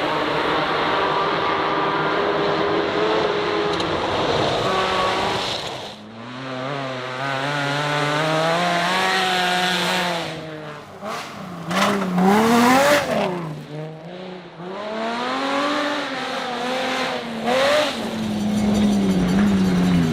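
Rally car engines under hard acceleration, the pitch climbing through the gears and dropping as the throttle lifts, several times over. A cluster of sharp cracks comes a little past the middle.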